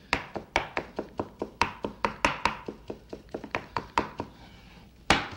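Stainless steel chef's knife chopping blanched, squeezed spinach on a wooden cutting board: quick, even knocks of the blade on the board, about four or five a second, then a short pause and one louder chop near the end.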